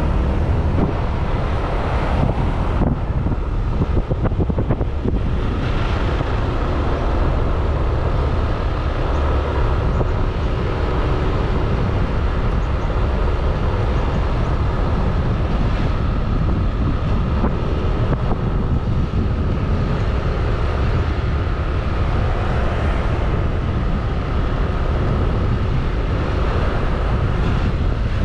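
A motor scooter on the move: steady wind rumble on the microphone over the scooter's small engine running evenly, with road noise.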